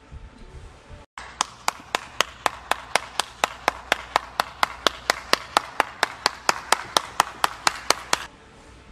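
One person clapping hands at a steady pace, about four claps a second. The claps start about a second in and stop abruptly near the end.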